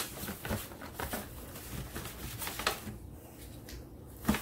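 Fingers rubbing butter over a disposable aluminium foil baking pan, the thin foil rustling, with a few sharp clicks of the foil; the loudest comes near the end.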